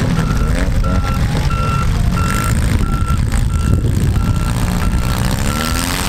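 Vehicle backup alarm beeping steadily, about one beep every 0.7 seconds, stopping shortly before the end, over the rumble of demolition-derby car engines revving and running.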